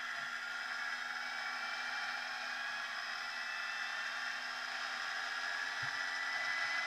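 Honda NSR50's two-stroke single-cylinder engine running at a steady speed under way, its pitch holding even and rising slightly near the end.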